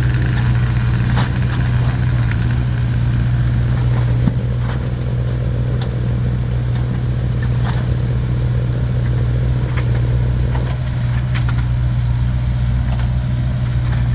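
An engine idling steadily with a low drone, with a few short clicks and knocks scattered through it.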